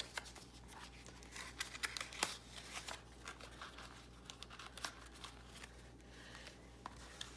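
Quiet handling of paper and cardstock envelopes: scattered small rustles and taps, busiest in the first three seconds.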